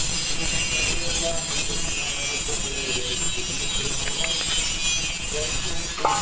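Steady crackling hiss of a stick-welding arc laying a vertical bead.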